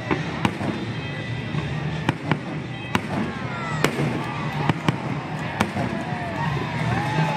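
Aerial fireworks shells bursting during a grand finale: sharp booming reports in quick, irregular succession, about one or two a second.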